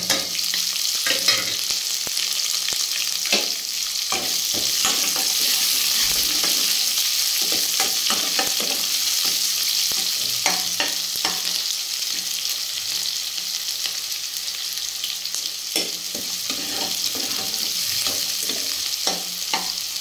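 Chopped onions sizzling as they fry in hot oil in a nonstick pan, with the ladle scraping and clicking against the pan as they are stirred.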